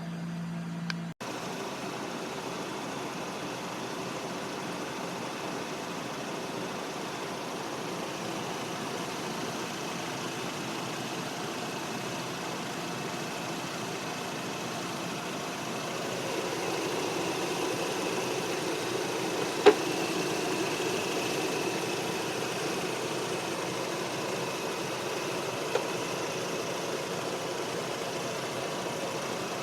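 High-mileage Mazda RX-8's two-rotor rotary engine idling steadily, getting a little louder a bit past halfway. A sharp click about two-thirds of the way in, and a fainter one later.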